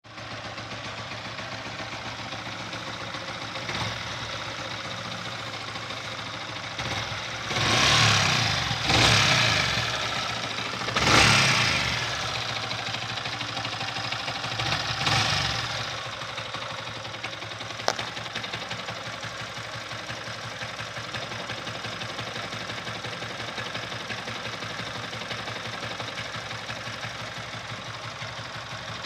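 Yamaha R15 V3's single-cylinder engine idling, blipped up in revs four times in the middle, with a sharp click a little after. The bike has a noise from the cylinder head and a rattle from the clutch bell.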